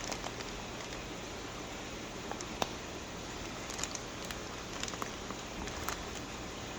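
Plastic fish shipping bags being handled: faint rustling and a few soft clicks over a steady background hiss.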